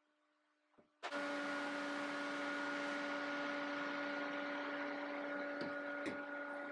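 Workshop machine motor running steadily, a hum with a hiss over it, cutting in suddenly about a second in. Two light knocks of wood being handled come shortly before the end.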